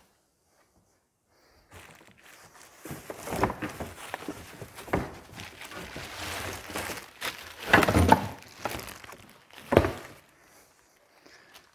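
Plastic packaging rustling and crinkling in a cardboard box as a plastic-wrapped flexible hose is pulled out, with a few sharp thumps, the loudest about eight and ten seconds in.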